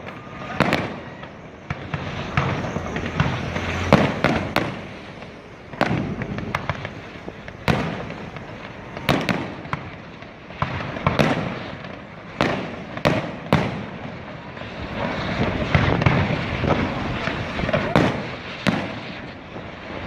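Aerial fireworks shells bursting in quick, irregular succession: sharp bangs, each trailing off in a rumbling echo.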